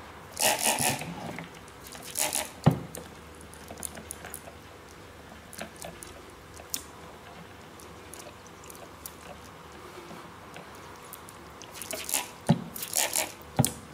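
Trigger spray bottle squirting water in short hissing bursts: a quick cluster about half a second in, a couple more about two seconds in, and a run of squirts near the end. A couple of soft knocks and a few light clicks fall between them.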